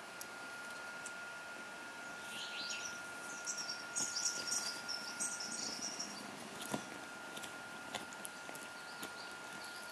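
Quiet room sound with birds chirping faintly in the background for a few seconds in the middle, over a steady thin high whine. Scattered light clicks and taps come from the kitten's teeth and claws on a wooden stick.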